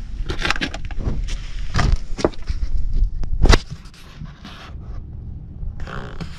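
Wind rumbling on the microphone, with a quick run of sharp clicks and knocks in the first three and a half seconds that then dies away to the wind alone.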